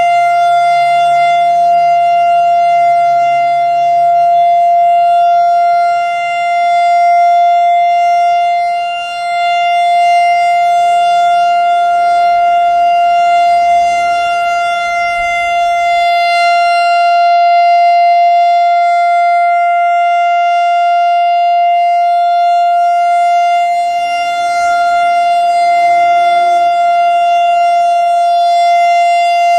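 Whelen WS-3016 electronic outdoor warning siren sounding its Alert signal: one loud, steady high tone held without a break, swelling and fading slightly as its rotating speaker array turns.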